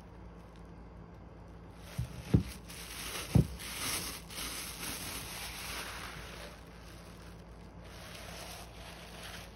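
Thin plastic bag rustling and crinkling as it is pulled off a cone of yarn, with three dull thumps from handling the cone about two to three and a half seconds in.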